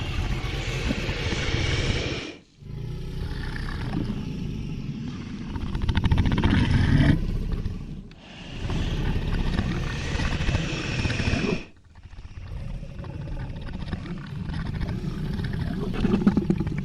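Designed dragon sound effects: a series of creature roars and low rumbling growls, separated by short breaks. Some of them carry a strong breathy hiss.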